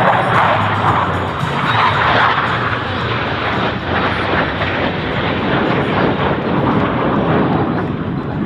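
Jet noise from Blue Angels F/A-18 Hornets in flight: a loud, steady rush, strongest in the first couple of seconds.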